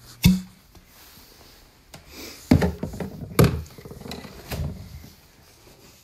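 One sharp knock, then a string of knocks and hollow thumps about two and a half to four and a half seconds in, the loudest around three and a half seconds.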